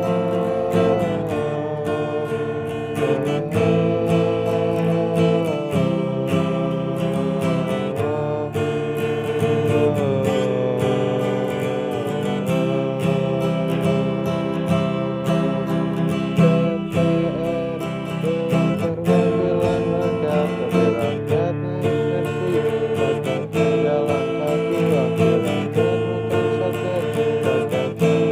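Acoustic guitar strummed steadily, with a man's voice singing along.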